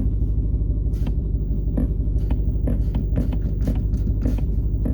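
Supercharged 6.2-litre HEMI V8 of a 2020 Dodge Challenger Hellcat Redeye idling in park with a quick, irregular clicking from the transmission shifter while the brake pedal is held. It is a fault the owner hears and feels as a vibration in the shifter column, and it happens only in park and neutral.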